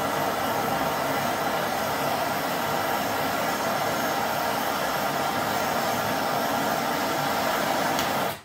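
Handheld gas torch burning with a steady hiss, its flame held on a .50 BMG bullet's tracer element to light it.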